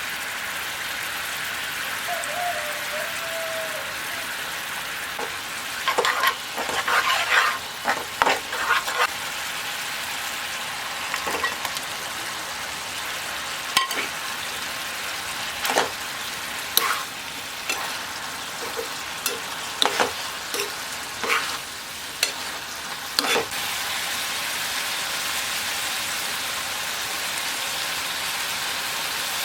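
Food sizzling as it fries in a pan, with a utensil clinking and scraping against the pan in a cluster of strikes about six seconds in and in scattered single strikes after.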